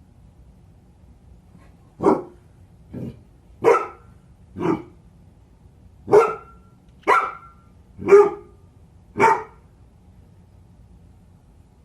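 A dog barking eight times, about one bark a second, the second bark softer than the rest.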